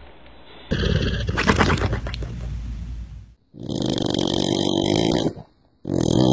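A dog snoring loudly: three long snores with short silent gaps between them, the first with a fast pulsing flutter.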